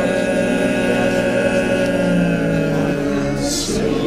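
Men's barbershop quartet singing a cappella, the four voices holding one chord in close harmony for about three seconds. The chord then breaks off with a short hiss near the end.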